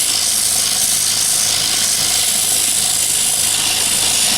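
A lathe running steadily while sandpaper is held against the spinning knife handle, giving a continuous sanding hiss over the motor's low hum.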